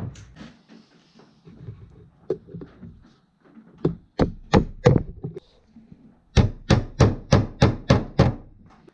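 Hammer tapping the small nails of a metal sawtooth hanger into a wooden picture frame: a few light handling clicks, then three sharp taps about four seconds in, then a quick run of about nine taps, some four a second.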